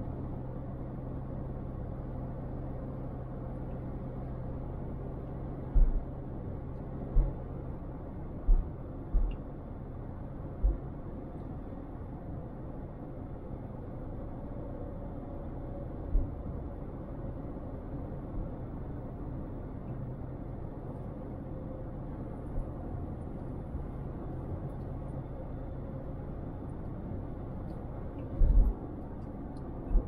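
Car driving, heard from a dash-mounted camera: a steady rumble of road and engine noise, with a low hum in the first eight seconds. Occasional low thumps come through, several between about six and eleven seconds in and a heavier one near the end.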